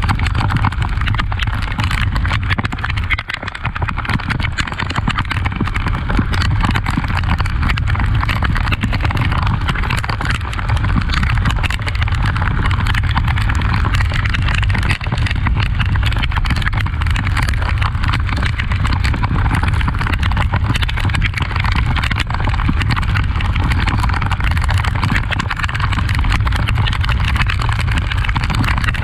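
Honda XRE 300's single-cylinder engine running steadily under way, with a steady rush of wind and road noise over the microphone.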